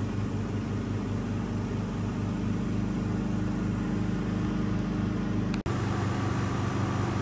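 Small window air conditioner running steadily, compressor and fan humming as it cools the tent. The hum cuts out for an instant a little over five seconds in, then carries on.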